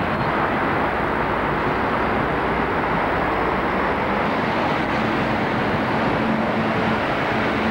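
Double-decker buses' diesel engines running in an enclosed bus station, a steady dense rumble. A steadier engine tone comes in about five seconds in as a bus pulls in.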